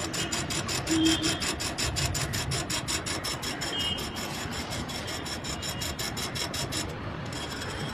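Electronic expansion valve in a Voltas split AC outdoor unit clicking rapidly and evenly, a 'kat-kat' of about five or six clicks a second, which stops about seven seconds in. It is the valve's motor driving it open at power-on, normal for these units and not a fault.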